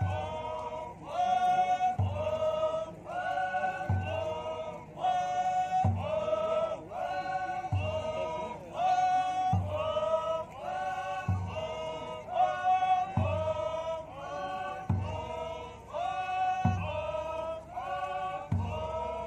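A large group of Naga dancers chanting a traditional song in unison, in short repeated phrases, with a deep drum struck about every two seconds.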